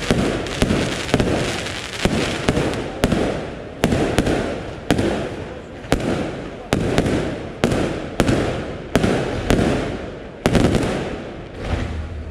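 Aerial firework shells bursting in succession, about one bang a second, each bang dying away slowly.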